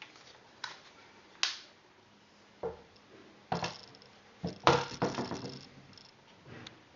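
A series of separate sharp clicks and metallic clinks, about eight in all, with a louder cluster of rattling knocks a little past the middle.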